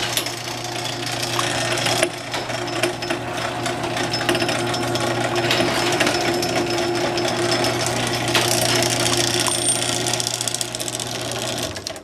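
Chain-drive garage door opener raising the door: the motor hums steadily while the drive chain clatters and rattles along the rail, then stops abruptly near the end. The chain's tension has just been loosened, so it is running slack.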